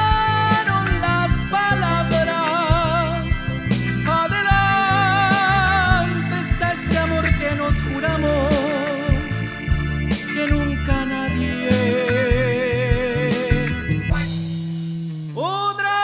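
Instrumental break of a romantic ballad played by a band: a lead electric guitar carries the melody in held, vibrato-laden notes over bass and steady drum ticks. About fourteen seconds in the drums stop and the music thins out to a fading low note.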